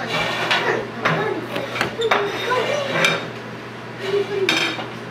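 Plates and cutlery clinking and knocking on a table in a series of irregular sharp clinks.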